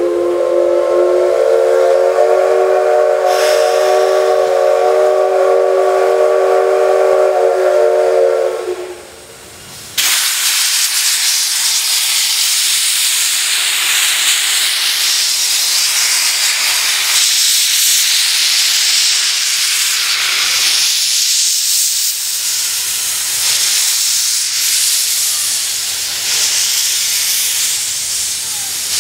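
C62 steam locomotive's whistle blowing one long blast of several tones at once for about nine seconds, the signal that the train is about to start. About a second after it stops, a loud steady hiss of steam cuts in suddenly from the open cylinder drain cocks as the locomotive moves off.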